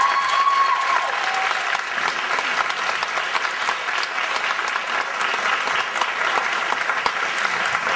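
Audience applause in a school auditorium: many people clapping steadily at the end of a song.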